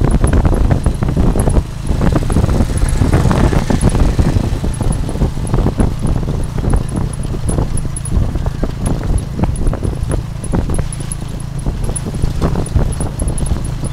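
Ride in a motorcycle-drawn tuk-tuk heard from the passenger carriage. The motorcycle engine runs at a steady cruise under a heavy low rumble, and the carriage rattles and clatters continually over the road.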